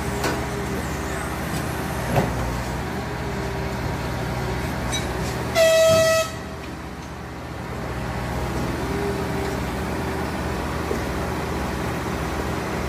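A railway horn sounds one short, steady blast lasting under a second, about halfway through, as a warning at a level crossing where track workers are on the line. Beneath it runs a steady low rumble of engines.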